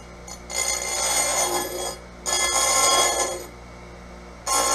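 Oregon bench chain grinder's motor running with a steady hum while its grinding wheel is dressed: three spells of grinding, a second or so each, as the dressing stone is pressed against the spinning wheel about half a second in, again at about two seconds, and near the end.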